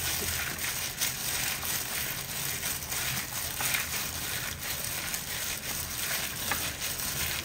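A thin plastic glove crinkling and the raw sliced beef squelching as a hand squeezes and mixes the meat on a plate, in quick, uneven crackles.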